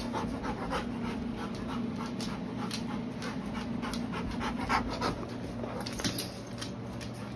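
Rottweiler panting steadily and rhythmically, open-mouthed: she is hot after activity.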